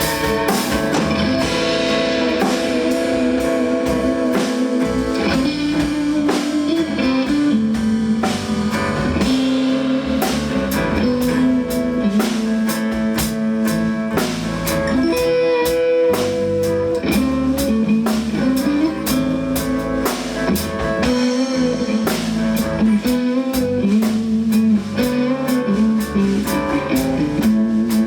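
Instrumental band music: guitars playing over a drum kit keeping a steady beat, with no singing.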